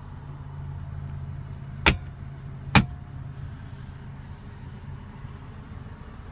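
Two sharp plastic clicks about a second apart, the second louder: the centre-console armrest lid being shut and latching. Under them runs a steady low hum from the idling car.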